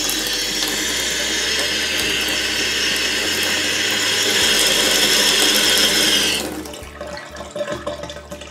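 Hot water poured from a pitcher in a steady stream into a bathtub drain, splashing on the tub and drain. The pour stops about six and a half seconds in. It is the flush that tests whether the drain cleaner has cleared the clog.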